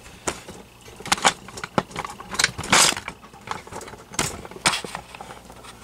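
Handling of a fan's plastic housing and power-cord strain relief as it is worked loose: irregular clicks, taps and light scrapes, with a few louder knocks around the middle.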